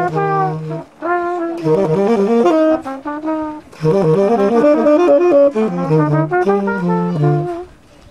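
Tenor saxophone and trumpet playing jazz together, their lines overlapping in phrases of quick, shifting notes broken by brief pauses.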